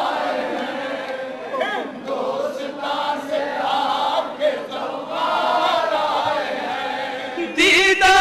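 Crowd of men chanting an Urdu noha (Shia mourning lament) in unison, many voices holding long, wavering notes. Near the end the singing gets louder and clearer.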